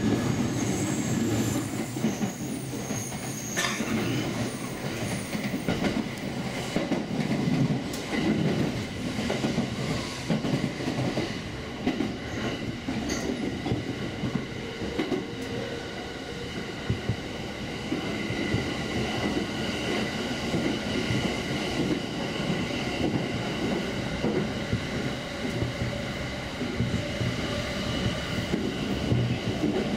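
Commuter train running at speed, heard from inside the carriage: a steady rumble of wheels on the rails, with a thin high wheel squeal that comes and goes, strongest in the first few seconds.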